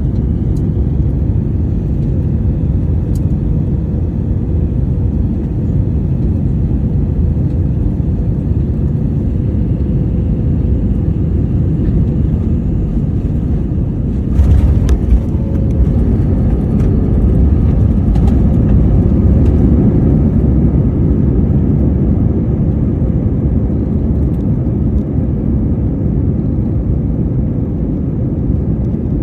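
Cabin noise inside an Airbus A321-211 on landing: a steady low rumble of airflow and its CFM56 engines. About halfway through comes a sudden jolt of touchdown, then the rumble grows louder for several seconds as the aircraft rolls out on the runway and slows.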